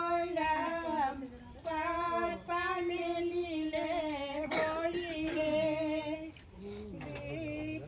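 A female voice singing a slow, unaccompanied melody in long held, wavering notes, phrase by phrase with short breaks for breath.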